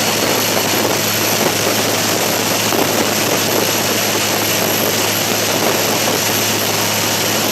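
Riverboat engine running steadily under a constant rushing noise, with a steady low hum and no change in level.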